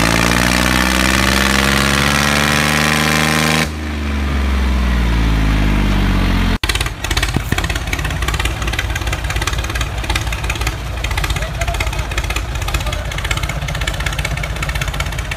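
Tractor engine sound, its pitch falling steadily for the first six seconds or so. It cuts off sharply about six and a half seconds in, then carries on as a fast, even chugging idle.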